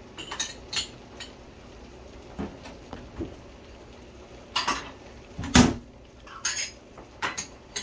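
Kitchen utensils and dishes clinking and knocking irregularly during food preparation, about a dozen separate clinks with short rings, the loudest a heavier clatter about five and a half seconds in.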